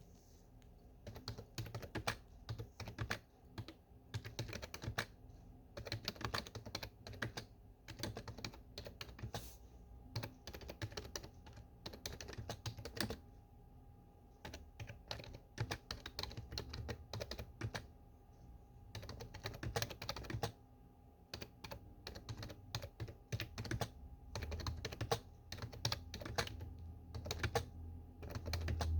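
Typing on a desktop computer keyboard: rapid key clicks in runs of a few seconds, broken by short pauses.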